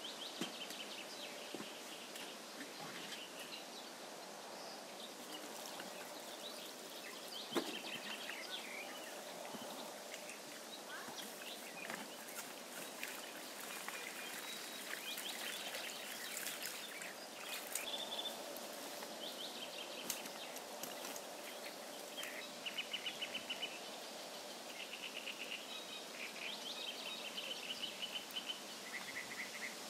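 Small songbirds chirping and singing rapid trills over a steady outdoor hiss, with a single knock about seven and a half seconds in.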